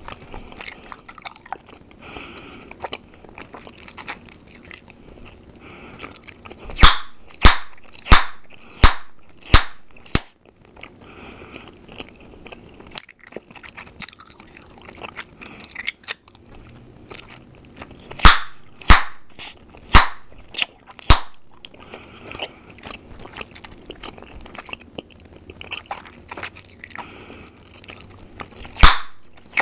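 Gum chewed close to the microphone with soft wet mouth sounds, broken by runs of sharp gum pops about two a second: about six starting around seven seconds in, five more around eighteen seconds, and one near the end.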